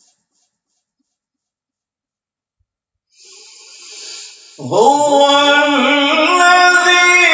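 Near silence for about three seconds, then an audible in-breath and a man's voice starts a slow, melodic Quran recitation in tartil style, holding long drawn-out notes.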